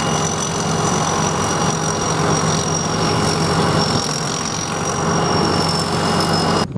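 Sakpattana SS100 mini rice combine harvester running steadily: a low engine note with a thin high whine above it that sinks slightly in pitch. The sound cuts off abruptly near the end.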